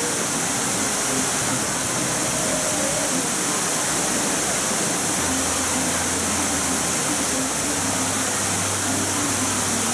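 Steady rushing splash of fountain water. A faint low hum comes in about halfway through.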